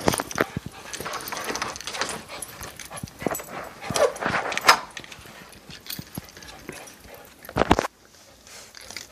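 Small dogs whining to be let outside, their short calls broken by many brief clicks and knocks. One loud burst comes near the end.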